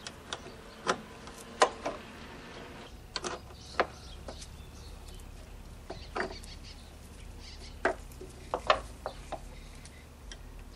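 Adjustable wrench loosening a car battery's negative terminal clamp and the clamp being worked off the post: about a dozen sharp metal clicks and taps at uneven intervals.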